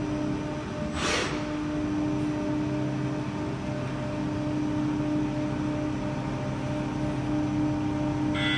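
SW BA 422 CNC horizontal machining centre running, its spindle and drives giving a steady hum with constant low tones. A short hiss comes about a second in, and near the end a rapid, stuttering higher-pitched sound starts.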